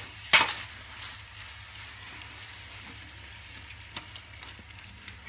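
Marinated chicken sizzling as it fries on high flame in a metal pot while a metal ladle stirs it. The ladle scrapes sharply against the pot about half a second in, and knocks more lightly near four seconds and again at the end.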